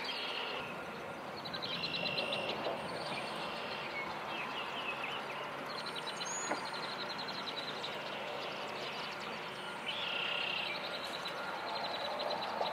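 Outdoor ambience: birds singing short trills every few seconds over a steady background hiss.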